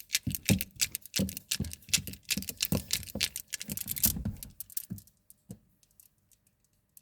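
Amber prayer beads (tesbih) clacking against each other in quick, irregular clicks as they are handled, stopping about five seconds in, followed by a few faint clicks.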